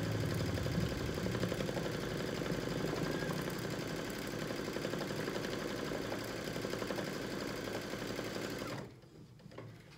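Brother Luminaire computerised embroidery machine stitching steadily, a fast even needle rhythm as it runs the double-line appliqué outline, then stopping abruptly about nine seconds in at the end of that colour section.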